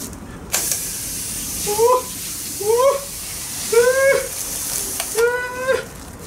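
Garden hose spray nozzle hissing as water showers over a man's head for about four and a half seconds, stopping near the end. Over it he gives four short high-pitched yelps, the last one longer as the water stops.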